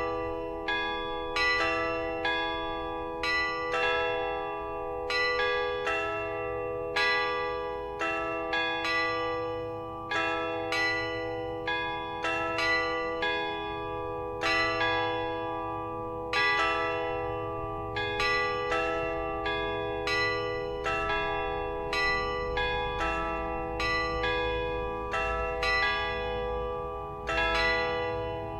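Church bells ringing, struck one after another at about one strike a second, each tone ringing on into the next.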